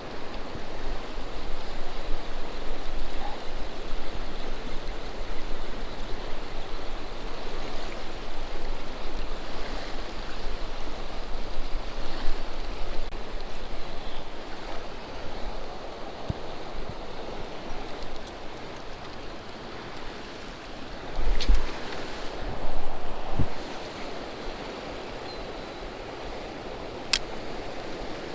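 Steady rushing hiss of wind and water on open water, with wind buffeting the microphone in a low rumble. A few sharp clicks and knocks come in the last third.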